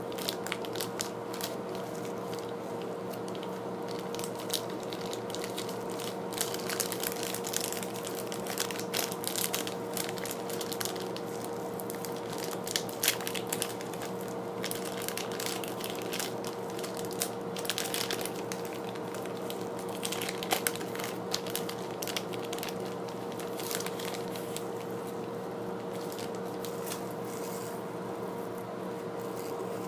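Clear plastic toy bag crinkling and crackling in irregular bursts as it is handled and opened and a heart-shaped tin is taken out, over a steady background hum.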